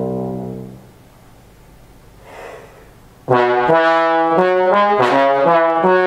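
Bass trombone heard from across the room: a held low note dies away within the first second. After a pause with a faint rush of noise, a new phrase begins about three seconds in, a run of separate notes stepping up and down.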